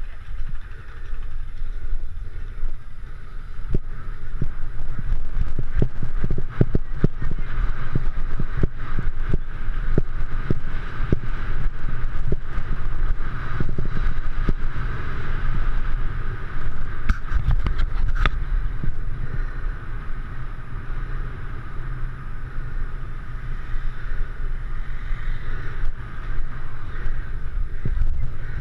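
Inline skate wheels rolling on asphalt: a steady low rumble with many small clicks and knocks.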